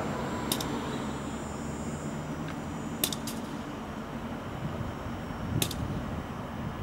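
Low, steady rumble of a distant idling diesel locomotive, with a few sharp metallic clinks spread through.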